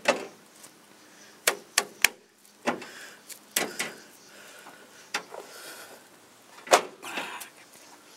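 Scattered sharp metal clicks and knocks as a bolt is fiddled into the mounting holes of a truck's rear bumper bracket by hand, with light rustling between them. The loudest knock comes near the end.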